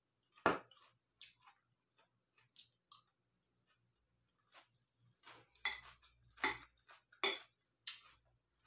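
A fork clinking and scraping against a salad bowl: a few short, sharp clicks, one about half a second in and a cluster of louder ones near the end.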